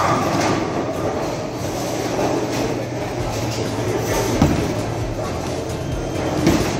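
Bowling alley din: a steady rumble of bowling balls rolling down the lanes. About four seconds in, a sharp thud as a released ball lands on the lane and rolls away.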